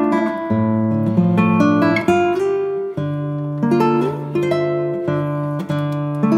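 Background music: acoustic guitar playing plucked and strummed notes over a moving bass line.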